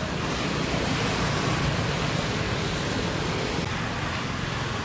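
A steady rushing noise with a low rumble beneath it. No distinct sounds stand out from it.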